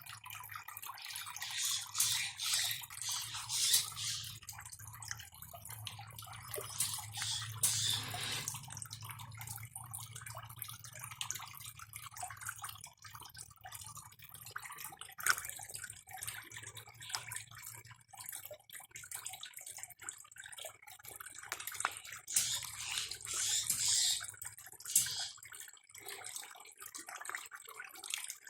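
Water splashing and trickling in irregular spurts, over a low steady hum that stops near the end.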